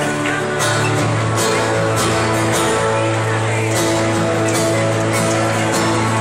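Acoustic guitar strummed in steady chords, played live and amplified through a stage PA speaker.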